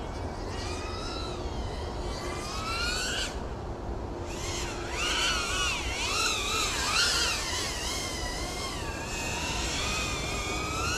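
FPV quadcopter's brushless motors whining, the pitch rising and falling with the throttle. The whine drops away briefly about three seconds in, then returns and climbs again near the end.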